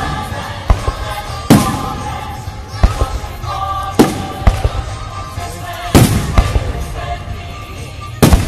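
Aerial firework shells bursting in a series of loud booms, one every second or two, with music playing in the background.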